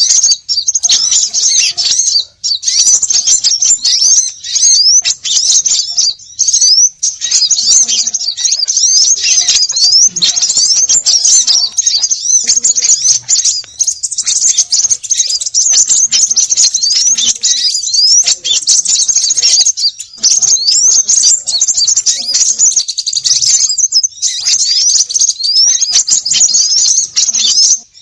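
A dense, noisy chorus of many small birds chirping and twittering, with rapid high chirps and quick rising whistles overlapping almost without a break. It is a bird-lure recording of agitated small birds, played to call other small birds in.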